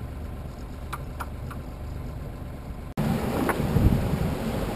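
A small sailboat's engine runs steadily at low revs while motoring, with a few light clicks about a second in. After a sudden cut near the middle, the sound turns louder and rougher, with wind buffeting the microphone over the engine and water.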